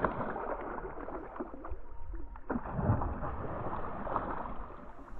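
Shallow lagoon water splashing and sloshing as a released tararira (wolf fish) thrashes and swims off, with a stronger splash about two and a half to three seconds in.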